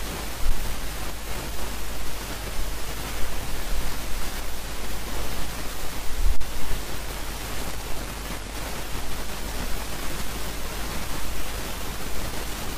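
Steady loud hiss spread evenly across the range, with a low hum beneath it: the noise floor of the recording microphone with no speech over it.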